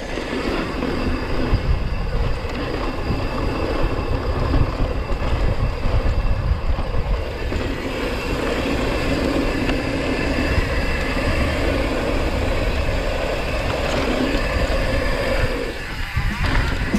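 Wind rushing over a helmet-cam microphone while a downhill mountain bike rolls fast over a dry dirt jump trail, the knobby tyres rumbling and the bike rattling over the rough ground.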